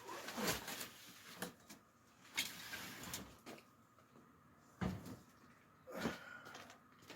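A handful of separate knocks and clatters, about five in all, spread across the span with quiet between them, like objects or doors being handled.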